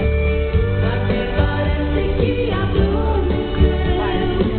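Music with a singing voice over a steady, pulsing bass line.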